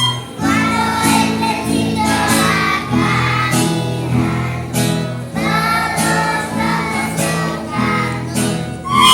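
Children singing a Spanish children's song together over instrumental accompaniment; a held flute note comes in right at the end.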